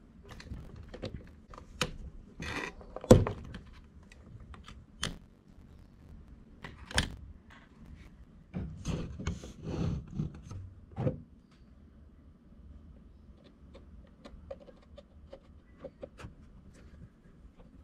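Clicks and knocks of RC buggy shock absorbers being handled and fitted to the chassis, with one sharp knock about three seconds in and a cluster of knocks just past the middle. Light ticks of a screwdriver on the parts near the end.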